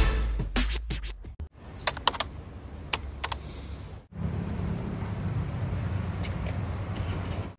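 The end of an intro music track with scratch-like clicks. About four seconds in there is an abrupt cut to a steady low rumble of vehicle noise.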